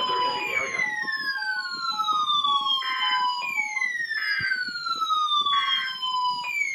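Weather radios alarming at once for the NOAA Weather Radio Required Weekly Test: a falling, siren-like whoop that repeats about every three seconds, over short broken beeps in the first half. In the second half come three short buzzing data bursts about a second apart, typical of the SAME header that triggers the radios.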